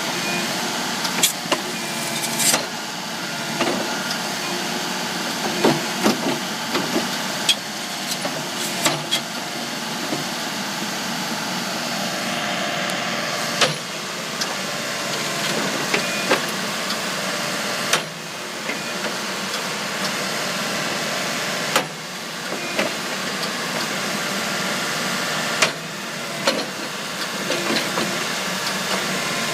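Case 580 Super N backhoe loader's diesel engine running steadily, with about a dozen sharp knocks or clunks scattered throughout.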